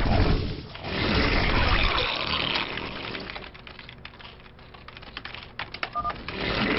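Real-time strategy game battle sound effects fill the first few seconds, then fade. Near the end comes a quick run of computer keyboard and mouse clicks from the player, with a short beep among them.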